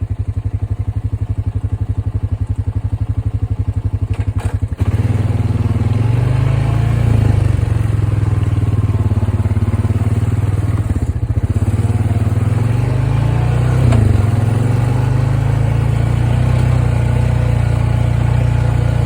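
Engine running with a rapid, even pulse. About five seconds in it shifts suddenly to a steadier, louder hum.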